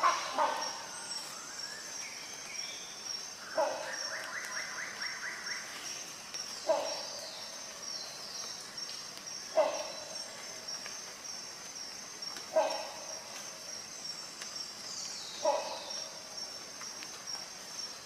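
Rhinoceros hornbill giving short, low calls repeated about every three seconds, over a steady high-pitched pulsing background.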